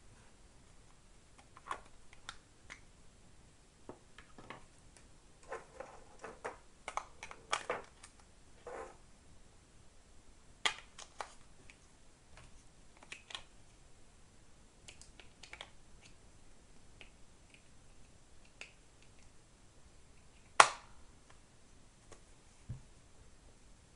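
Plastic clicks and rattles of a Garmin Legend handheld GPS being handled while its battery cover is off, with AA batteries in the compartment. The clicks are scattered and irregular, thickest early on, with one loud sharp click near the end followed by a soft knock.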